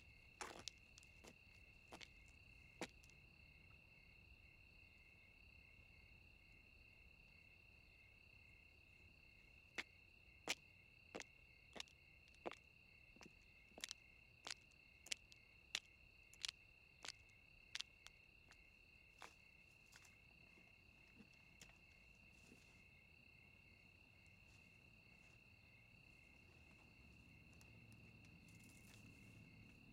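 Steady, faint chirring of crickets. Over it come sharp crunching footsteps on dry ground and brush: a few near the start, then an evenly paced run of about a dozen in the middle. A low rumble swells near the end.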